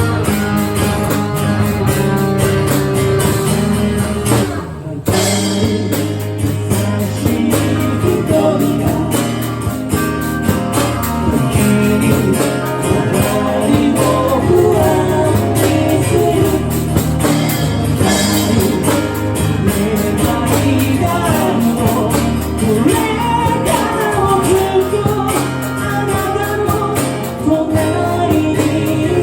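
A rock song with guitar and a lead vocal. The music drops out briefly about five seconds in, then carries on.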